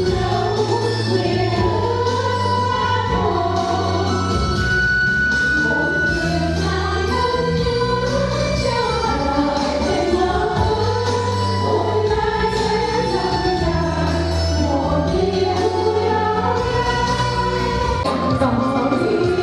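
Music: a group of voices singing together over instrumental accompaniment with a steady bass and light percussion.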